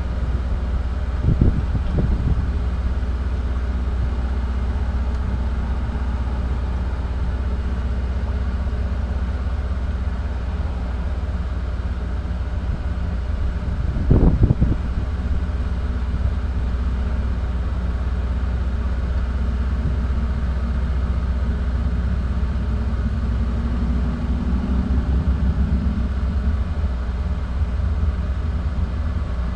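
Vehicle engine idling, heard from inside the parked vehicle's cab: a steady low rumble, with a brief thump about a second and a half in and another about halfway through.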